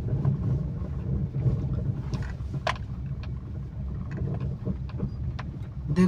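Low, steady engine rumble of a slow-moving motor vehicle on a rough dirt road, with scattered faint clicks and rattles.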